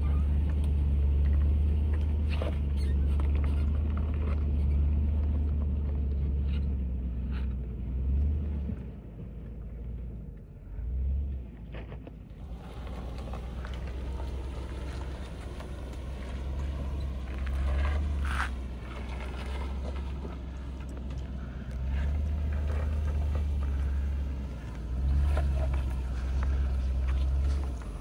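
Land Rover LR4 driving off-road: a low vehicle rumble that swells and eases, dropping away for a couple of seconds about ten seconds in, with a few sharp knocks or clicks.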